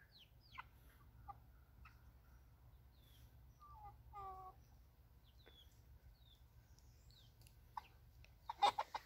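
Young chickens peeping faintly, with scattered short, falling chirps, a brief clucking call about four seconds in and a louder burst of calls near the end.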